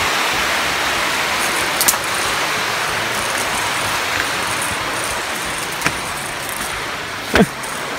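Steady road noise of traffic passing on a highway overpass, an even hiss with no engine standing out. A few brief sharp clicks sound over it.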